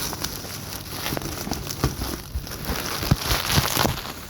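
Packing material being pulled and unwrapped by hand: a dense crackling and crinkling rustle full of small clicks.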